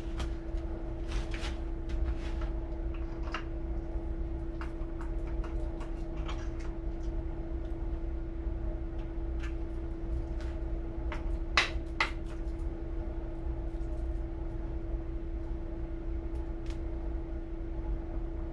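Mini skid steer's small engine running steadily at idle, with scattered metallic clicks and knocks from parts being handled, two louder clanks about halfway through.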